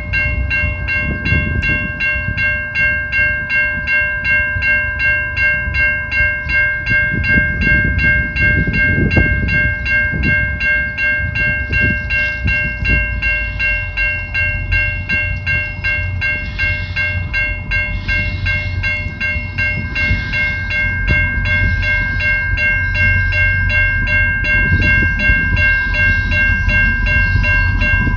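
Railway level-crossing warning bell ringing steadily with fast, even strikes while the gates are down, over a low rumble.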